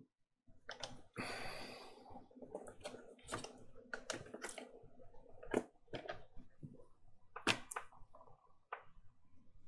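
Plastic clicks, snaps and rubbing from an Alienware M17x R1 laptop's hinge cover and top trim panel being fitted and pressed into place by hand. There is a brief scraping slide about a second in, then a string of sharp snaps, loudest around two-thirds of the way through.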